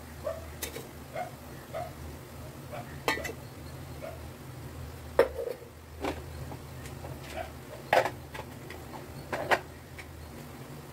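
Metal kitchen utensils clinking and knocking against vessels as spice powder is spooned onto vegetables in an aluminium pan, with a few sharper clinks about 3, 5, 8 and 9.5 seconds in, over a steady low hum.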